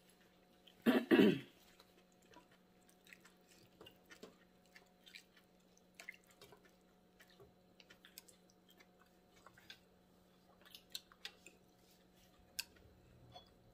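Metal serving tongs clicking and clinking lightly against a stainless-steel hotpot and a ceramic bowl as beef and noodles are served, over a steady faint hum. A short throat-clearing sound comes about a second in and is the loudest thing.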